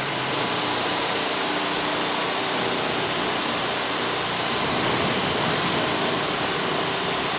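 A 10-ton self-aligning welding turning roll running under test, its drive and rollers turning with a steady, even mechanical whirring hiss that does not change.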